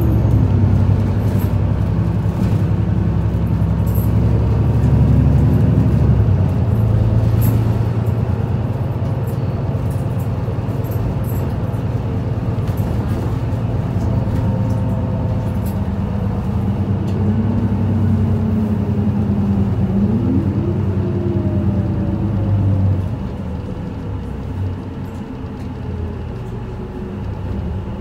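Isuzu Erga city bus's four-cylinder turbo diesel running under way, heard from inside the passenger cabin. A steady engine hum, with the engine note rising and then dropping sharply about two-thirds through, as at a gear change; the sound gets quieter near the end as the bus eases off.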